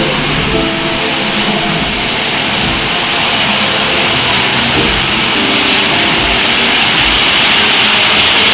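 Waterfall: a loud, steady rush of falling water that grows somewhat louder toward the end.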